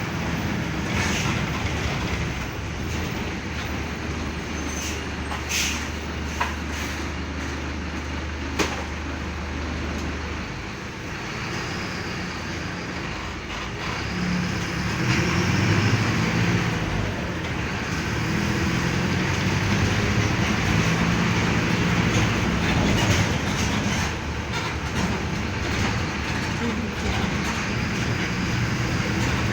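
Mercedes-Benz OF-1519 BlueTec 5 bus's diesel engine running: a steady low hum at first, then from about halfway through a louder engine note that rises and falls as it works harder, with a few sharp clicks and rattles.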